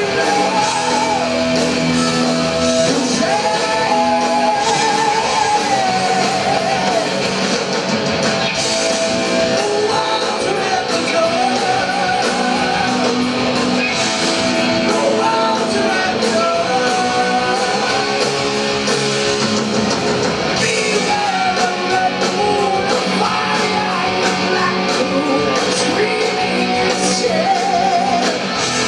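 Heavy metal band playing live: electric guitars, bass guitar and drums, with a lead singer's voice over the top in a large room.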